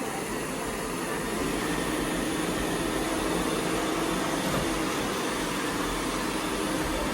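Several robot vacuum cleaners, Roombas among them, running at once: a steady whir.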